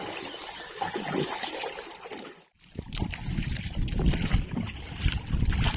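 Water sloshing and splashing around a small boat, with a sudden break about two and a half seconds in; after it, louder low rumbling noise with scattered knocks comes in.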